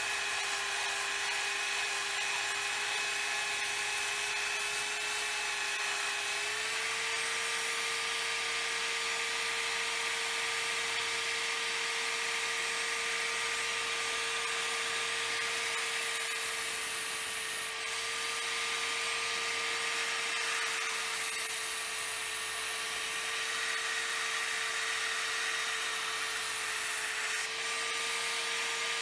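A small high-speed power tool running steadily with a high whine. Its pitch steps up slightly about six seconds in, over a hiss that grows stronger in the second half.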